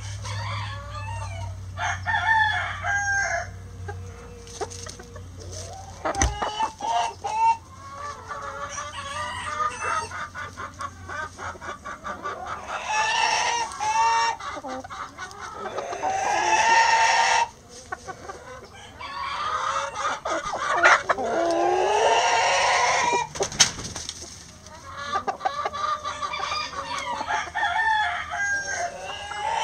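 A backyard flock of chickens: hens clucking and calling throughout, with roosters crowing several long crows through the middle.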